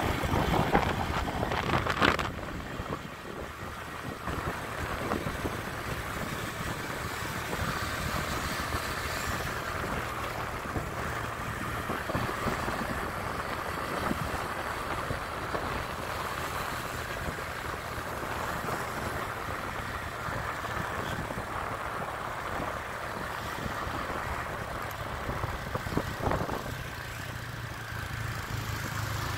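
Wind noise on the microphone of a moving motorbike, over the bike's engine and road noise. A steady low hum comes up near the end.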